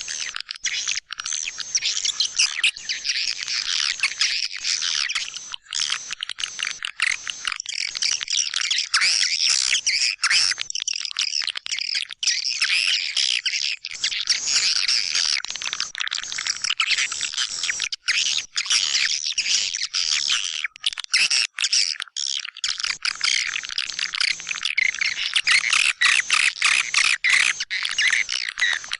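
Swiftlet lure call: a dense, continuous chorus of white-nest swiftlet chirps and twitters, high-pitched, with many very brief dropouts. It is a recording played in swiftlet houses to draw the birds in to roost and nest.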